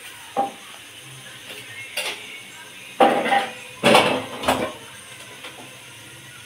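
A metal utensil knocking and scraping against a cooking pot: a light knock early, then two louder half-second scrapes about three and four seconds in.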